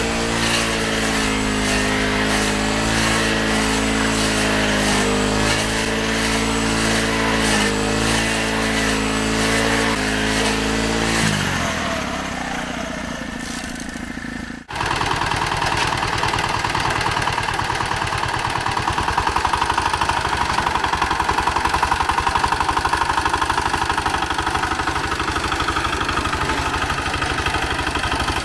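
Small engine of garden machinery running steadily, easing off about eleven seconds in. After a sudden break a few seconds later, a small engine runs again with a harsher, higher sound.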